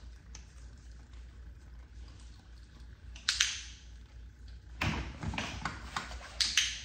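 Rustling and scuffing handling noises close to the microphone from a person moving: one short sharp rustle about three seconds in, then a run of scuffs and rustles through the last two seconds, one of them with a dull low thump.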